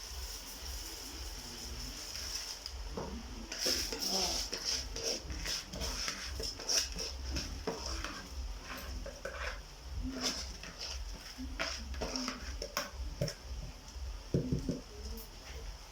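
Rice being added to a pot of spiced frying beef and stirred in: irregular clinks and scrapes of a utensil against the cooking pot, starting about three seconds in, over a steady hiss.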